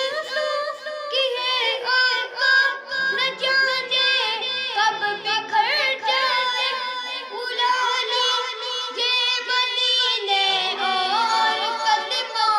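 A boy singing an Urdu naat solo in a high voice, with no instruments, holding long notes that glide through melodic turns.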